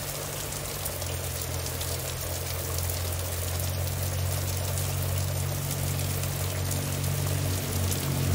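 Heavy rain pouring down, a steady hiss of drops, over a steady low hum.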